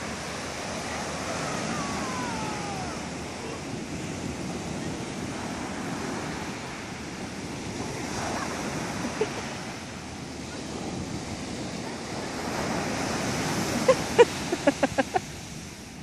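Ocean surf breaking and washing up the beach: a steady rush that swells and eases with the waves. Near the end, a quick run of short, pitched voice sounds cuts in over it.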